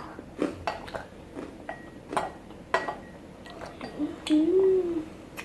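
A child eating crunchy chocolate malt balls: scattered sharp clicks and crunches, with a short hummed "mmm" about four seconds in.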